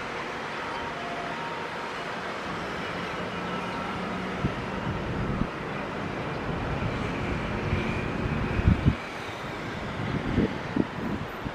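Steady distant jet-engine noise with a faint whine from an Austrian Airlines Boeing 767-300ER on the ground. Gusts of wind hit the microphone several times in the second half, and these knocks are the loudest sounds.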